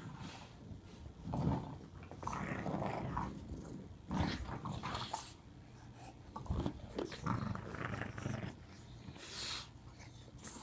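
English bulldogs growling in play, in a string of rough bursts with short pauses between them. It is play growling, which sounds meaner than it is.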